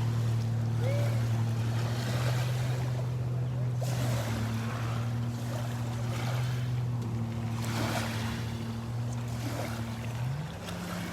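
A steady low motor hum that steps up to a higher pitch about ten seconds in, over gusts of wind and lapping water.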